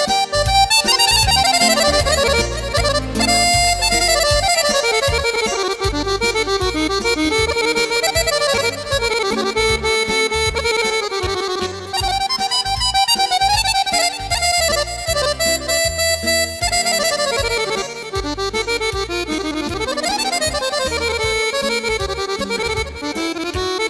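Instrumental introduction of a folk song, with an accordion playing the melody over a bass line.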